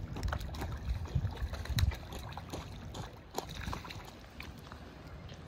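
Hooked rainbow trout splashing and thrashing at the pond's surface as it is played in close to the bank, with scattered sharp clicks and knocks.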